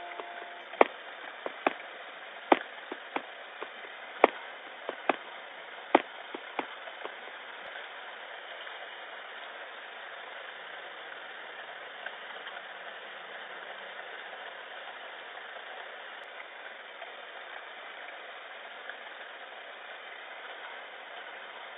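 Steady static-like hiss with no tone or rhythm in it. About ten sharp clicks are scattered through the first seven seconds.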